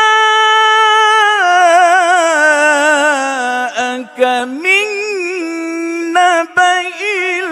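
A man reciting the Quran solo in the melodic mujawwad style. He holds one long note, then slides downward through wavering ornaments, with brief breaths and a rise in pitch near the middle.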